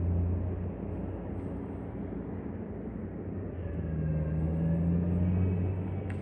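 A steady low engine drone that swells a little louder from about four to five and a half seconds in.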